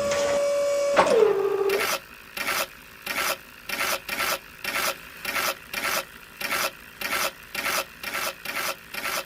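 Small electric motor of a homemade mini cement mixer humming, then dropping in pitch about a second in. After that come rhythmic rasping scrapes, about two a second.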